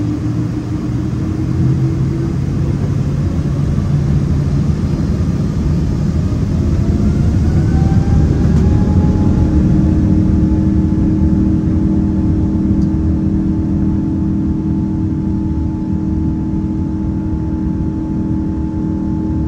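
Boeing 777's Pratt & Whitney PW4000-series turbofans spooling up: a whine that rises in pitch over a few seconds, about a third of the way in, then holds steady over a deep drone as thrust comes up, typical of the start of the takeoff roll.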